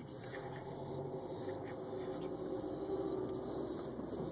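Low, steady noise from a car creeping along in traffic, with a thin, high whistling tone that comes and goes in short pieces.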